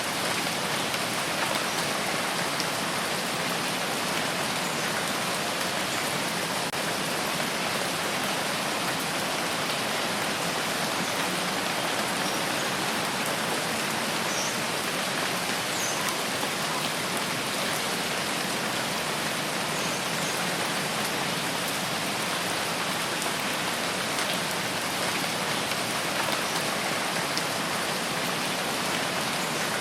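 Steady rain falling, an even hiss of many drops that keeps up without a break.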